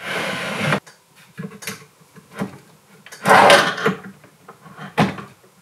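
Plywood drawer being slid along metal ball-bearing drawer slides: a rolling slide under a second long at the start and another, louder, past the middle, with small knocks between, then a sharp click near the end as the slide's lock catches.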